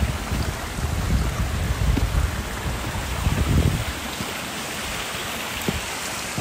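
A small mountain stream trickling and splashing between granite boulders, a steady hiss of running water. Wind rumbles on the microphone over the first four seconds or so, then drops away.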